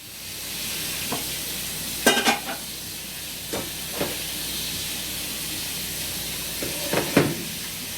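Food sizzling in hot oil as a steady hiss, with a handful of short knocks and clinks of a utensil, loudest about two seconds in and again near the end.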